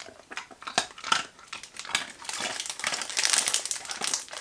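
Small plastic treat packet crinkling as it is handled in the fingers and the dog treats are taken out, in irregular crackles that are thickest in the second half.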